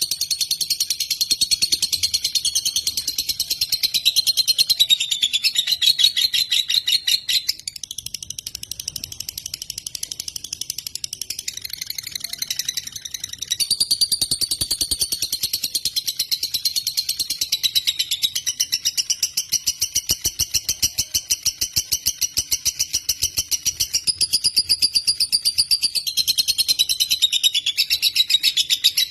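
Lovebird singing a long, unbroken song of fast high-pitched chattering notes, softer for a few seconds partway through and then full again.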